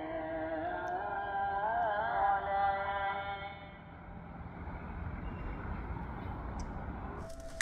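A single voice chanting long held notes that waver and ornament in pitch, fading out a little past halfway. A low steady rumble is left after it.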